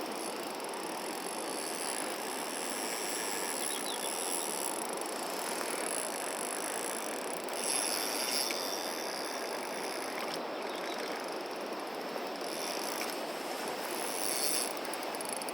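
Steady rush of a mountain stream flowing over rocks, with a few brief brighter hisses about halfway through and near the end.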